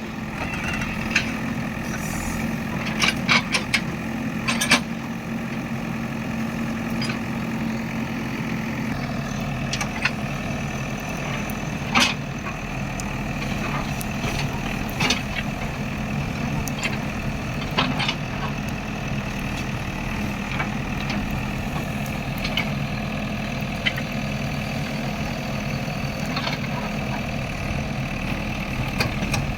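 Diesel engine of a JCB machine running steadily, its note dropping slightly about nine seconds in, with scattered sharp knocks and cracks over the top.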